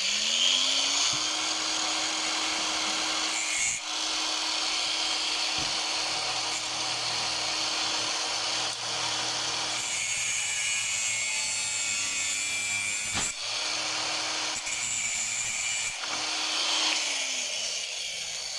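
Angle grinder spinning up, cutting a lawnmower throttle cable's outer casing with a steady hiss over the motor's whine, then spinning down near the end.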